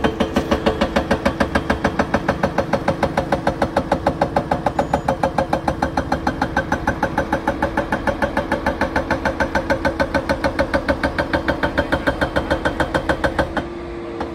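Doosan excavator's hydraulic rock breaker hammering into a rock face in a rapid, even rhythm of several blows a second, over the steady running of the excavator's diesel engine. The hammering stops abruptly near the end, leaving the engine running.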